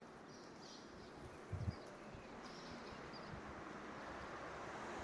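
Faint outdoor ambience: a steady noise that slowly grows louder, with a few faint high chirps and a brief low thump about one and a half seconds in.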